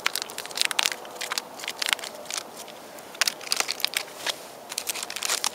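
Foil MRE pouch of jalapeño cheese spread crinkling and crackling as it is kneaded and handled by hand, in irregular crisp clicks.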